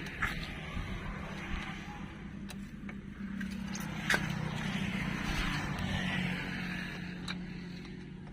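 Excavator's diesel engine running steadily, with a hiss over it and a few sharp clicks or knocks.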